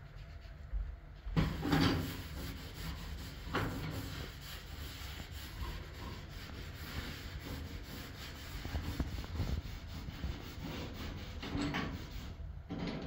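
A cloth wiping and scrubbing the enamel hob of a gas cooker, a continuous rubbing with a few knocks from things on the stovetop being moved.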